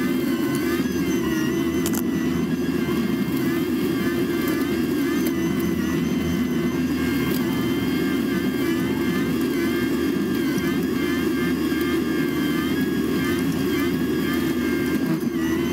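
Caterpillar 297C compact track loader's diesel engine running steadily at working revs while driving a front-mounted Quik Attach hydraulic brush cutter through brush. A wavering high whine sits over the low engine drone.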